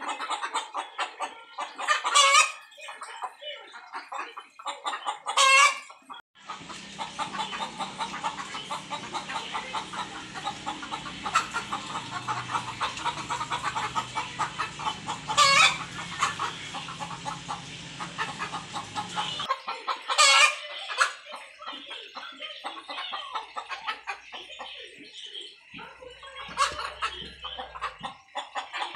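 Chickens clucking continuously, with about five loud squawks spread through it. A steady rushing noise with a low rumble runs underneath for about thirteen seconds in the middle.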